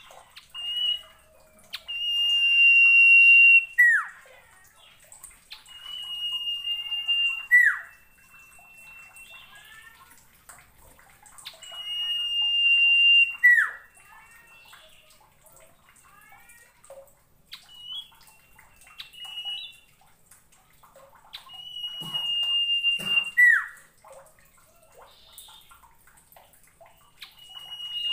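Common iora (sirtu, cipoh) singing: a long, steady whistle that swells in loudness and ends in a quick falling note, four times over, with soft twittering notes in between and another whistle starting near the end.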